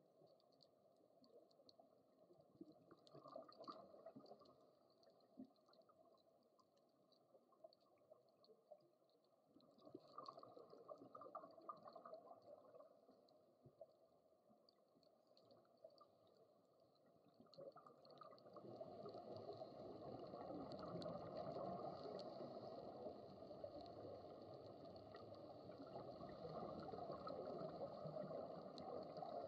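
Faint underwater ambient noise heard through an action camera's waterproof housing: a muffled wash with swells of gurgling, growing louder about two-thirds of the way in.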